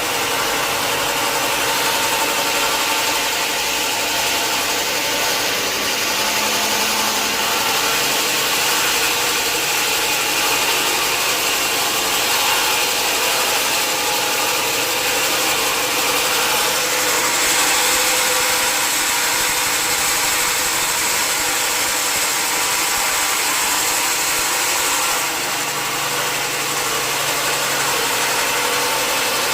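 Sawmill machinery running steadily, with a high steady tone that comes in about halfway through and stops a few seconds before the end.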